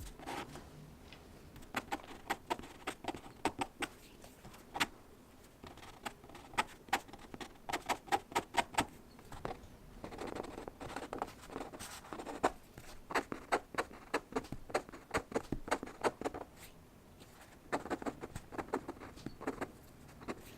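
Pen scratching and tapping on paper in quick, irregular clusters of short strokes.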